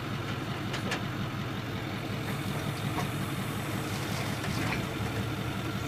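Tow truck engine idling steadily, with a couple of faint clicks.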